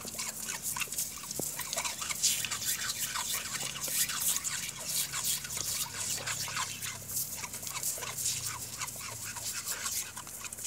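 Dog lapping and snapping at a thin jet of water from a garden hose, a fast, irregular run of wet splashes and slurps.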